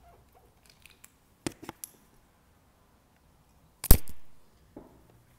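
Handling noises as a bottle of acetone nail polish remover is opened and used to wet a cotton pad. A few light clicks come about a second and a half in, then one sharp, loud click just before four seconds that fades quickly.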